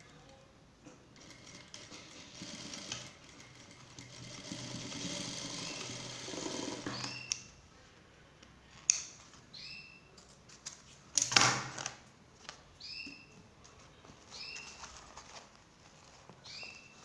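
An industrial lockstitch sewing machine stitches steadily for about six seconds and stops abruptly. Scissors then snip several times, with one louder knock about halfway through.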